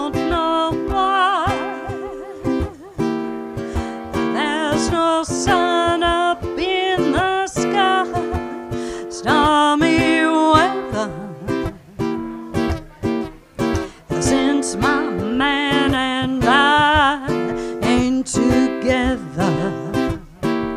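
A woman singing a jazz vocal with a wide vibrato in several phrases, accompanied by a baritone ukulele strummed in chords.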